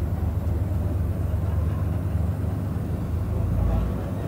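Airbus A319 heard from inside the cabin while taxiing: a steady low rumble that swells briefly about three and a half seconds in.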